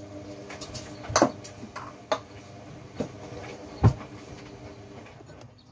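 A few sharp knocks and clinks as a glass sauce jar and tableware are handled and set down, the loudest about a second in and again just before four seconds. Under them runs a steady low hum that stops near the end.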